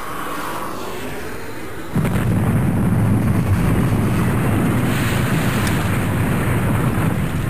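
A quieter hiss gives way about two seconds in to a sudden, steady low rumble with an explosion-like roar that keeps going.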